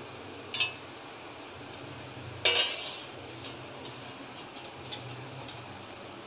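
Steel slotted spoon clinking against steel cookware while lifting jalebis out of the oil: a light clink about half a second in, then a louder ringing clank about two and a half seconds in, and a few faint ticks after, over a low steady hum.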